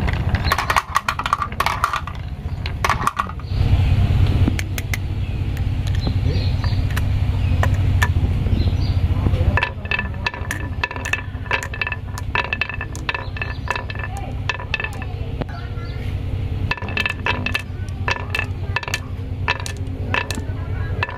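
Marbles rolling and clacking on wooden marble-run tracks: a steady low rolling rumble along a wooden channel, then from about ten seconds in many sharp clicks with a short ringing tone as marbles are dropped one by one into a carved pine track and knock against each other and the wood.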